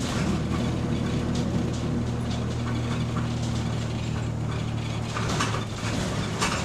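Bus engine drone heard from inside the passenger saloon while the bus is under way, steady and low, with a few short clattering noises between about five and six and a half seconds in.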